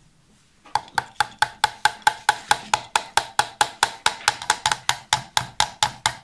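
Rapid, even tapping, about four or five taps a second, starting about a second in: blue-handled pliers knocking a pin into a BMW exterior door handle to seat it.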